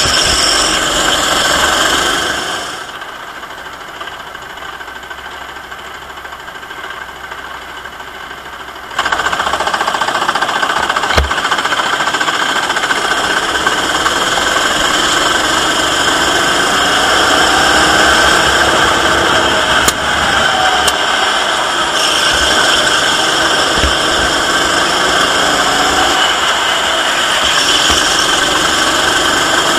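Go-kart engine at racing speed, heard onboard, its pitch rising and falling through the corners. About 3 s in it drops much quieter, then comes back loud about 9 s in.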